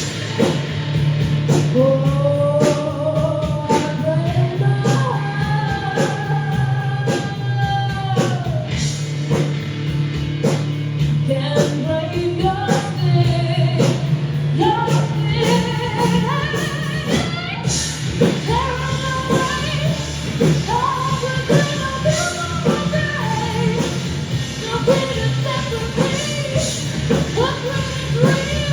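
A band playing a song with a lead singer: a sung melody over a steady bass line and regular drum hits.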